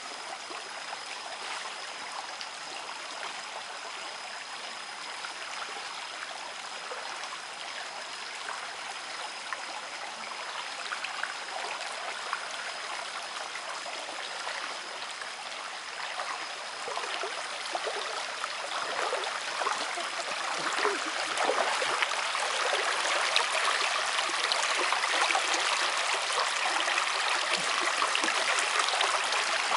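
Shallow forest stream flowing and trickling, with many small splashes. It grows louder and more splashy about halfway through.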